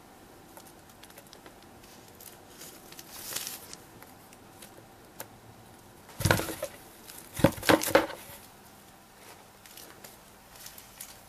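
Rustling and scraping against a cardboard box and its loose strips of packing tape: faint scuffs at first, a louder rustle about six seconds in, then three quick scrapes about a second later.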